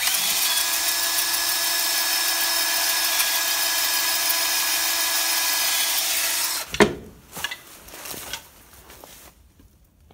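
Cordless drill boring into the steel locking collar of a tractor PTO shaft coupler, running at a steady pitch for about six and a half seconds and then stopping. A sharp click and a few light knocks follow. The bit is one that the user thinks is getting dull.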